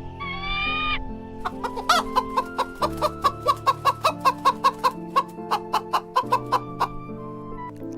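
Chicken clucking in a quick run of short sharp calls, about three or four a second, over background music, after one short rising call about a second earlier.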